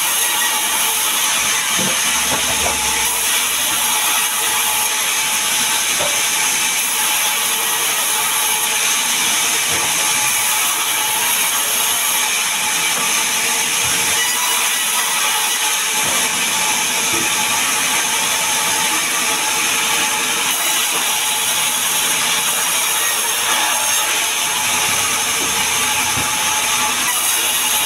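Sawmill band saw running and cutting a sengon log lengthwise into boards: a steady, loud noise of the blade running through the wood.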